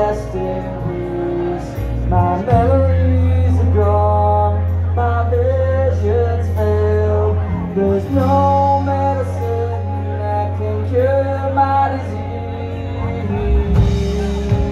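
Live rock band playing loud through a club PA: electric guitar and heavy electric bass, with a man singing.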